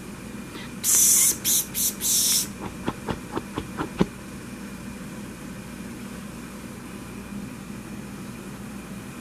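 Four short, loud hissing rustles, like fabric rubbed close to the microphone, then a quick run of six or seven light taps ending in a sharper tap. A steady low hiss lies underneath.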